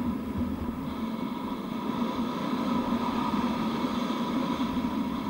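Steady rush of wind over a helmet-mounted camera's microphone, with skis running over packed, tracked snow during a downhill run, a little louder midway.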